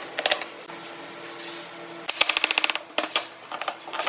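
Workshop handling noises: short rattles of rapid mechanical clicking, the longest burst about two seconds in, over a faint steady hum.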